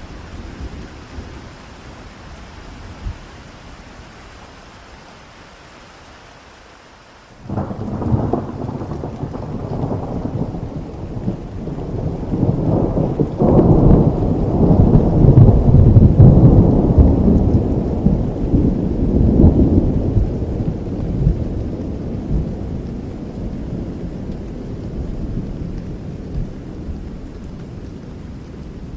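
Steady rain, then about seven seconds in a sudden clap of thunder that breaks into a long, deep rumble, swelling for several seconds and slowly fading as the rain goes on.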